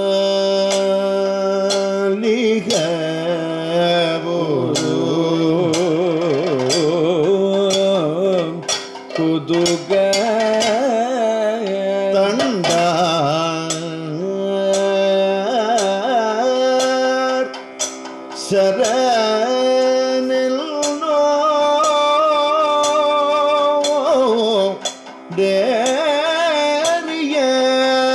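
Kathakali music: a male singer sings a melody with long held notes and wavering ornaments over a steady drone, with sharp percussion strikes throughout.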